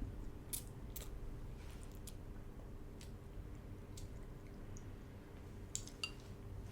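Quiet eating at the table: faint chewing with a few light clicks of utensils against a bowl, over a steady low hum.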